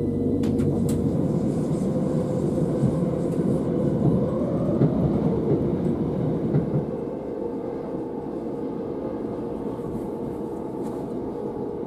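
Passenger train running, heard from inside the carriage: a steady rumble with a steady hum, a whine that rises in pitch about four seconds in, and the rumble easing a little in the second half.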